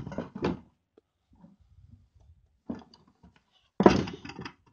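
Handling noise: a few short knocks and rustles as things are moved about on the workbench. The loudest is a sudden knock about four seconds in.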